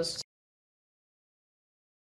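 The end of a spoken line in the first quarter second, then dead digital silence.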